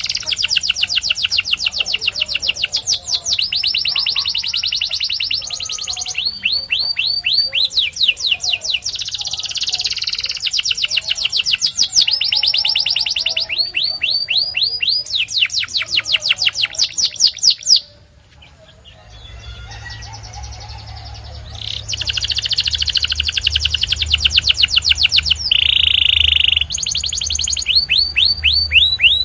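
Domestic canary singing: long rolling trills of rapid, repeated sweeping notes, changing from one roll to the next. The song breaks off briefly about two-thirds through, then resumes with a low steady hum beneath it and a held whistled note near the end.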